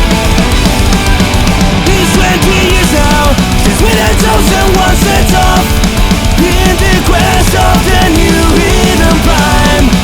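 Loud punk rock soundtrack: fast drums, distorted guitars and singing.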